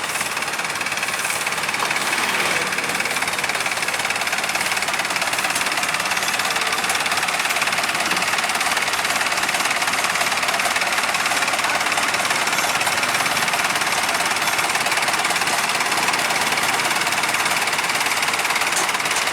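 Farm machine's diesel engine running steadily under constant load, a dense even mechanical drone.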